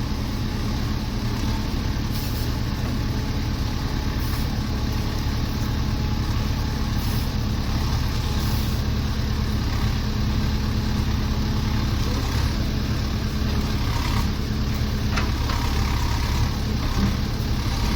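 Engine of a heavy work machine running steadily at an even idle-like speed.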